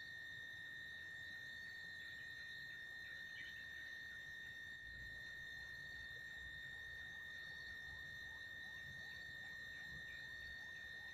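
Insects in the surrounding forest giving a steady, high-pitched drone on one unwavering note, with faint short chirps scattered through the second half.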